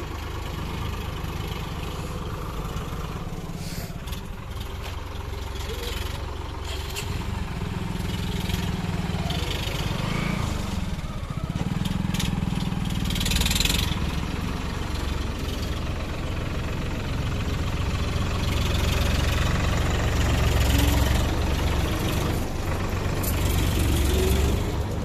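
Engine of a wheat combine harvester running steadily with a low hum, growing louder in the second half, with a few short metallic clatters.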